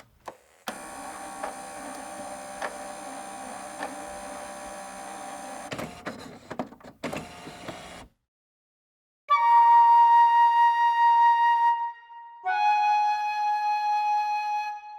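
A faint steady hum with a soft tick a little more than once a second, then two loud held pitched notes, each about two and a half seconds long, the second slightly lower than the first.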